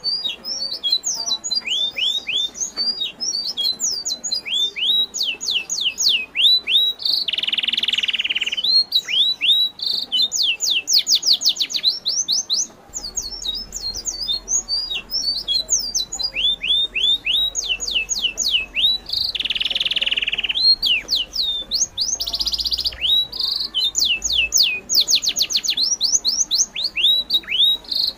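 Songbirds chirping: steady runs of short, high chirps that each drop in pitch, with a harsher buzzy call about 8 seconds in and again about 20 seconds in.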